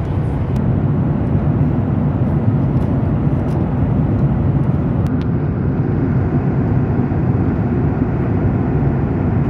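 Jet airliner in flight heard from inside the cabin: the steady, deep, even rush of engine and cabin noise.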